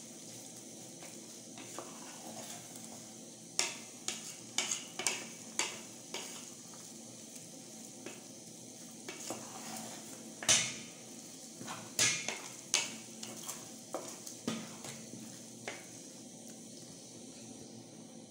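Wooden spoon stirring spaghetti in an aluminium pot, knocking and scraping against the pot's sides in irregular clacks, the loudest about halfway through, over a steady faint hiss.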